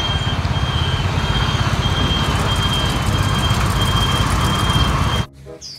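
Semi-truck diesel engine running with a steady, fast-pulsing low rumble and a thin high tone that comes and goes. It cuts off abruptly about five seconds in.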